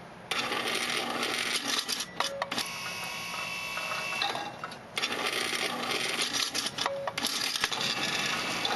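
Balls clattering through a ball-feeding tank machine: a dense run of rattles and clicks that starts just after the beginning, stops briefly about five seconds in, then starts again.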